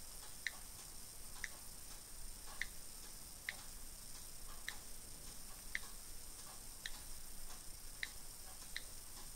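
iPad on-screen keyboard key clicks, a short sharp tick at each key press, about one a second as an email address is typed slowly.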